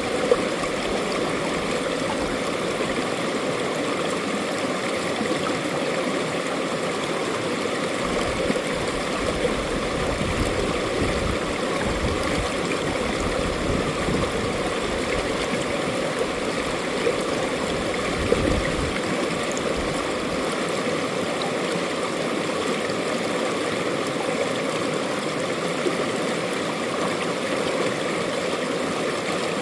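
Mountain stream flowing steadily over rocks, an even rushing and gurgling of water with a few small splashes.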